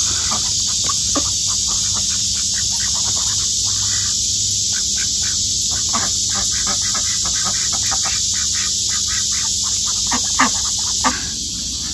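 Ducks pecking at grain scattered on bare ground: rapid, irregular clicks and scratches of their bills, over a steady high drone of insects.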